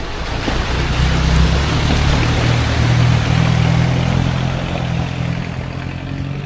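A vehicle driving past, its engine hum and road noise swelling over the first couple of seconds and then slowly fading.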